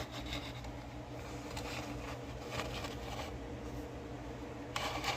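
Steady low hum with faint scattered light clicks and rustles, a little busier near the end.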